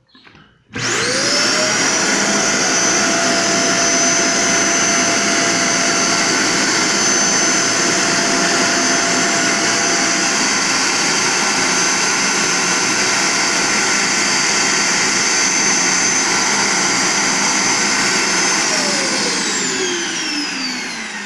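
Vacuum motor of a dental vacuum-forming machine switching on, rising to speed within a second, running steadily with a high whine, then winding down with a falling pitch near the end. The suction is drawing the heated, sagging acetate sheet down over the dental model.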